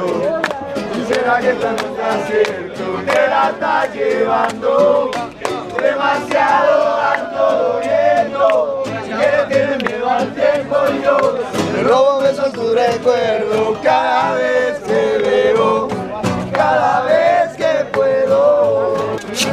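A group of men singing a chant together at the tops of their voices over several strummed acoustic guitars, with sharp regular strokes keeping the beat.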